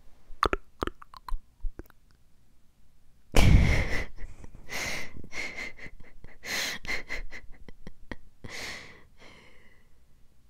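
Close-miked mouth sounds into a clip-on microphone held at the lips: a few sharp mouth clicks, then about three and a half seconds in a sudden loud breathy burst, followed by a run of short breathy puffs.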